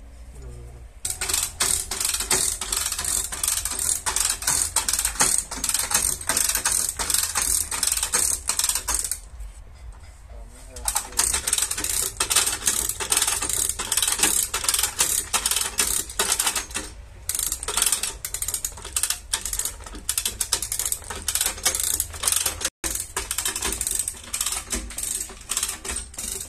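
Manual ratchet lever chain hoist being pumped, its pawl clicking rapidly as it pulls a chain taut to straighten a crash-damaged front chassis rail. The clicking stops for about two seconds partway through, then resumes.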